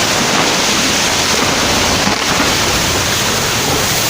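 Loud, steady rush of fast-flowing floodwater, a torrent running without a break.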